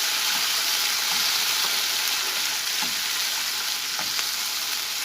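Onion, garlic and tomato sizzling steadily in hot olive oil in a pot, with a few faint ticks along the way.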